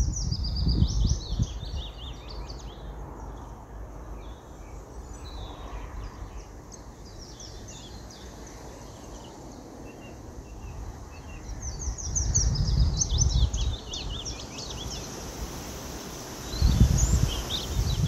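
Songbirds chirping and singing over a steady outdoor background, busiest at the start and again around twelve seconds in. Low rumbles of wind on the microphone swell up a few times, near the start, around twelve seconds in and near the end.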